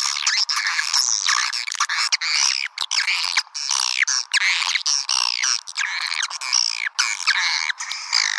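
Swiftlet lure-call recording: dense, rapid chirping and twittering in quick sweeping notes, the kind of call played to draw swiftlets into a nesting house.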